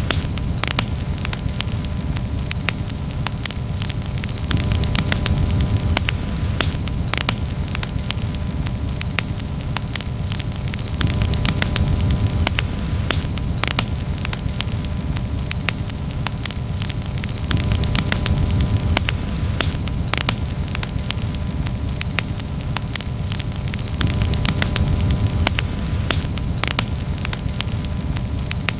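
Campfire burning, with frequent irregular crackles and sharp pops over a steady low rumble.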